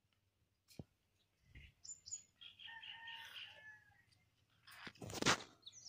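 Birds chirping in the background, then about five seconds in a short, loud slurp as hot green gram kanji (mung bean porridge) is sipped.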